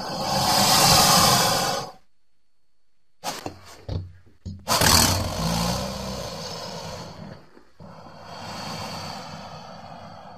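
Crocodilian calls: three long, harsh, noisy calls, the first about two seconds long and the loudest, with a few short knocks between the first and second.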